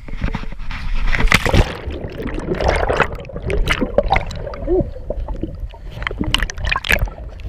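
A kayak capsizing: a loud splash about a second in as the paddler tips over into the water, then a muffled underwater churn of bubbles gurgling and popping, heard from a microphone under the surface.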